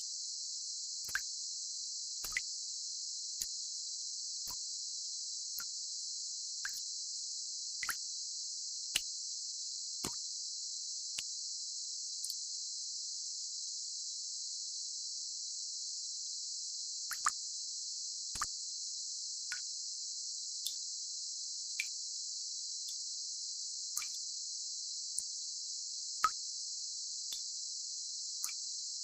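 Steady high-pitched hiss confined to a narrow band, the kind of band-limited noise played for tinnitus masking, with short drop-like plops about once a second that pause for a few seconds midway.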